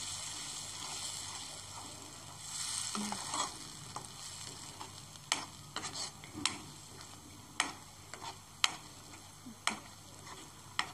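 Tomato purée and masala sizzling softly in a frying pan while a steel spoon stirs it, with sharp clinks of the spoon against the pan about once a second through the second half.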